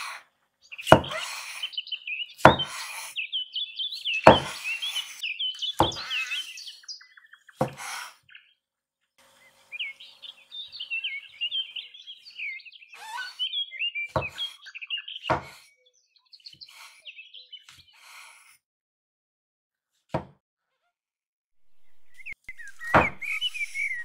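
A cleaver chops through button mushrooms onto a wooden cutting board: about nine sharp knocks, one every second or two, with a longer pause in the middle. A small bird chirps and warbles in the background between the chops.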